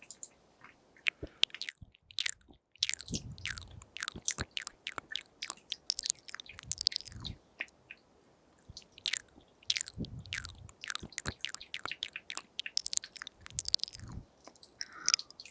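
Close-miked wet mouth sounds: quick clicks and smacks of tongue and lips. They come in two dense runs with a short lull between.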